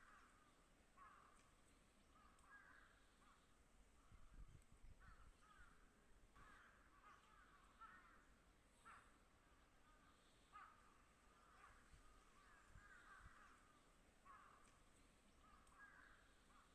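Crows cawing faintly, with many short, harsh calls repeating throughout.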